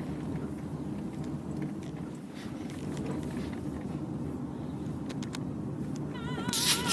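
Steady low rumble of a car's engine and road noise heard from inside the cabin while driving, with a brief louder burst of noise with a wavering tone near the end.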